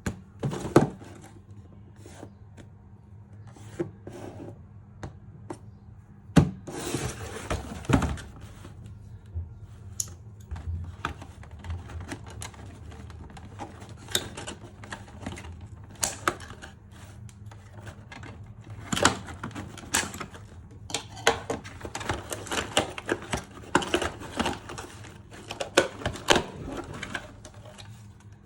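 Unboxing handling of a toy blaster's packaging: irregular clicks, taps and knocks of cardboard and plastic, with a longer rustle about six seconds in and a busier run of handling in the last third. A faint steady low hum lies underneath.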